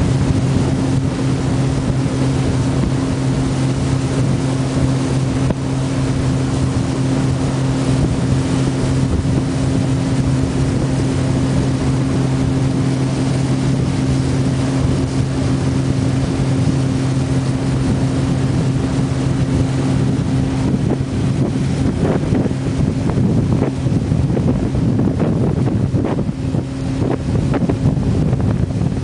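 Outboard motor of a long wooden river launch running steadily at cruising speed, a constant drone, with wind buffeting the microphone and growing gustier in the last few seconds.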